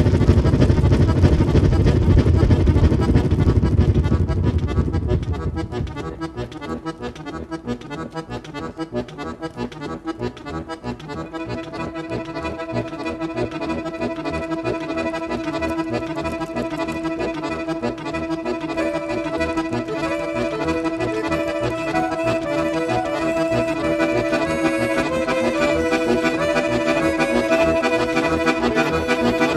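Accordion trio music. It opens with a loud low rumble that fades out about five seconds in, then sustained accordion chords and a melody build, fuller from about eleven seconds in.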